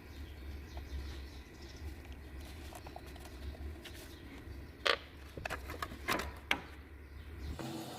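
Steady low hum with a handful of sharp clicks and knocks from tools and engine parts being handled during a timing belt change, the loudest about five seconds in.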